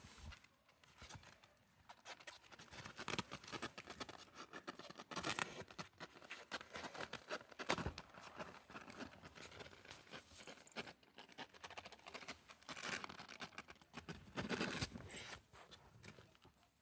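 Kitten moving about and playing: irregular rustling, scratching and light taps, with one sharper knock about eight seconds in.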